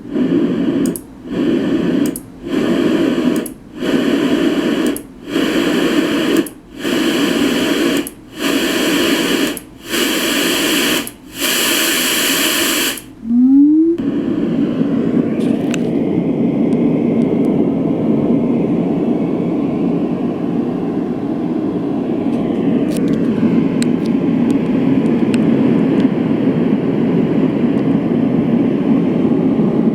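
LectroFan classic white noise machine stepping through its sound settings: short bursts of hiss about once a second for some 13 seconds, each hissier and brighter than the last. After a short rising tone it settles into a steady, deeper rushing noise.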